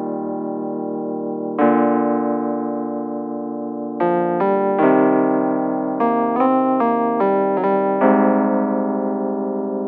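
Background music on keyboard: held chords that slowly fade, each struck afresh, with a quick run of short notes in the middle.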